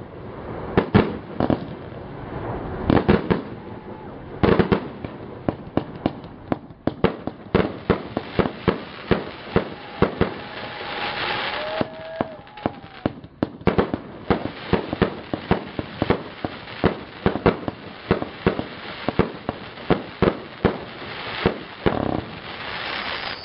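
A 200-shot 1.2-inch-calibre fireworks battery firing shell after shell, each shot a sharp bang. The shots come in a few spaced clusters at first, then several a second from about seven seconds in.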